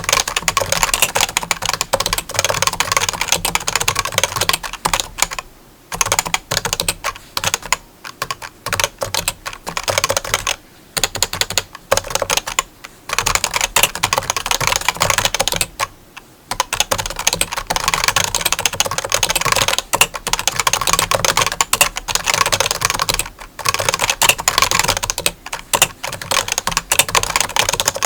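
Rapid, dense clicking and tapping that runs on continuously, broken by brief pauses every few seconds.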